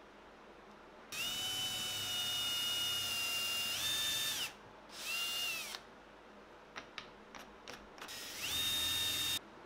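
Cordless drill motor whining as it bores into a small wooden strip, in three runs: a long one, a short one and a final one, the pitch stepping up near the end of the first and last runs. A few light clicks come between the second and third runs.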